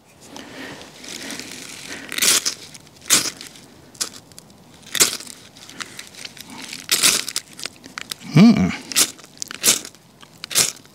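A ferrocerium fire steel scraped hard again and again to throw sparks onto fuzzed birch-bark tinder, about seven rasping strikes at uneven intervals; it takes several strikes before the tinder catches. A short grunt-like vocal sound comes about three quarters of the way through.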